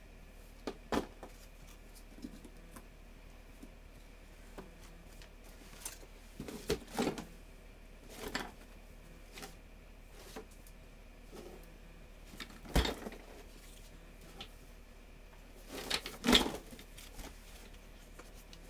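Scattered knocks, thumps and scuffs from an empty cardboard box being handled and moved by a toddler. A sharp knock comes about two-thirds of the way through, and a louder cluster of thumps follows near the end.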